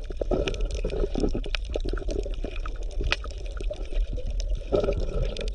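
Bubbling water: a steady run of small, irregular pops and gurgles.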